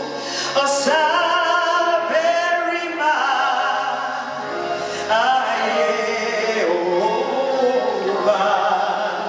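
Live gospel singing: a woman and a man singing lead into microphones, with a choir behind them. Long held notes that slide from one pitch to the next.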